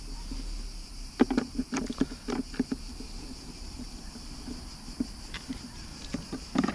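Screwdriver clicking and scraping against the screws and plastic mounting base of an old Humminbird Fishfinder 565, being unscrewed, with a run of clicks and knocks between about one and three seconds in and a louder knock near the end. Insects shrill steadily throughout.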